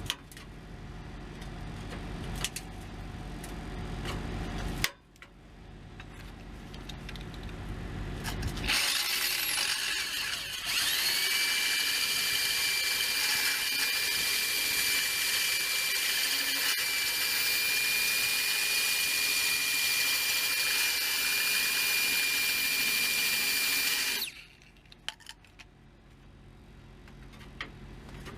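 Corded electric drill with a small abrasive cutoff wheel spinning up with a rising whine, then running at steady full speed for about thirteen seconds as it cuts through the steel U-bolt on a truck's exhaust pipe, before shutting off abruptly. A low rumble comes first.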